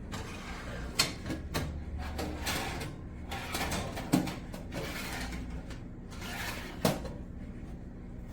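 Handling noises: four sharp knocks or clatters, with sliding and scraping sounds between them.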